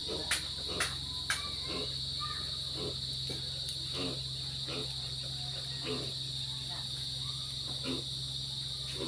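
Insects chirring in a steady, unbroken high drone. A few sharp clicks sound in the first second and a half, and soft low knocks recur about once a second.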